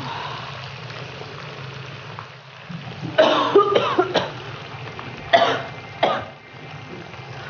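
A woman coughing: a quick run of about four coughs, then two more single coughs a second or two later.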